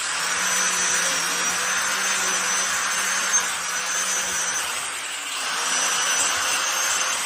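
Electric power tool running steadily while working wood: a constant high motor whine and low hum over a rushing noise, easing off a little about five seconds in and then picking up again.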